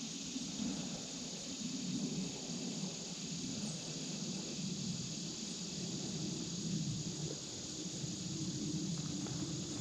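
Steady outdoor ambience of an insect chorus, an even high hiss, over a low, shifting rumble.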